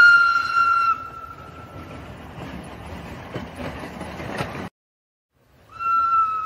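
Toy steam locomotive's built-in whistle sound, one steady high tone that stops about a second in, followed by the toy train rattling and clicking along its plastic track. After a brief complete dropout near the end, the whistle tone starts again.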